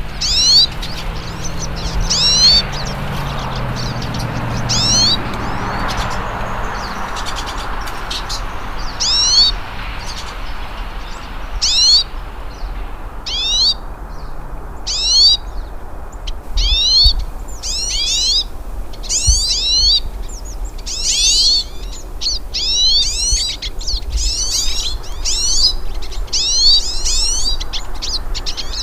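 Small songbirds singing: short, high chirped phrases repeated about every second and a half, turning into a dense, overlapping chorus from about halfway on.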